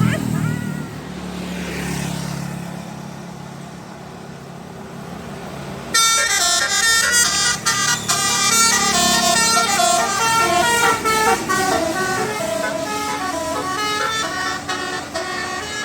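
A bus engine runs low for about six seconds, then a telolet multi-tone bus horn starts suddenly and plays a fast melody of shifting notes to the end. The horn is the loudest sound.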